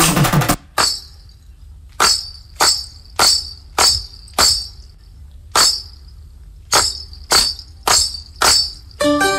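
Dance music breaks off and is followed by a run of about eleven sharp, jingling tambourine-like hits in uneven groups, roughly two a second. The music, with plucked strings, comes back in near the end.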